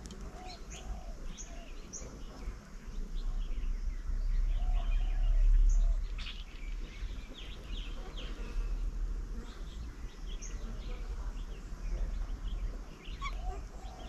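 Several songbirds calling, with short high chirps scattered throughout. A low rumble swells about four seconds in and drops away about two seconds later.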